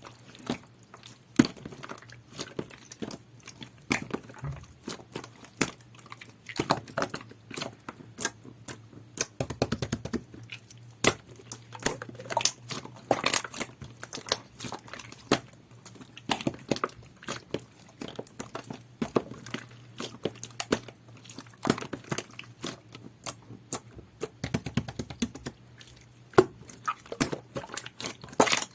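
A large batch of clear, jelly-textured slime being squeezed and poked by hand, making irregular sticky clicks and pops.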